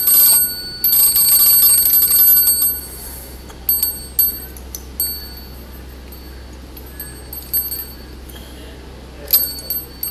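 The domed tin bell of a vintage Bullmark wind-up Godzilla tricycle toy rung in rapid strikes by its clockwork, a continuous ringing that stops about three seconds in. After that come only occasional single dings and light clicks.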